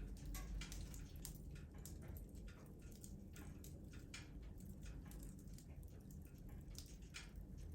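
Wood fire in a fireplace crackling faintly, with irregular sharp pops and snaps over a low steady rumble.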